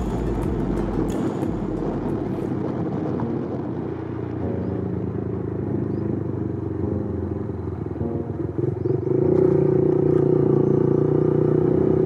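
Motor vehicle engine running steadily while driving along a road, with road and wind noise. It grows louder about nine seconds in.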